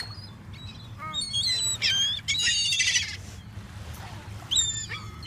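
Gulls calling, with many overlapping squawks and cries that are densest and loudest about two to three seconds in, as the flock squabbles over thrown food. A steady low rumble runs underneath.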